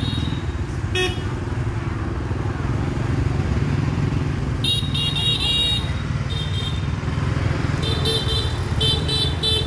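Motor scooters running past on a street, a steady low engine and road rumble. Several short high-pitched toots come about halfway through and again near the end.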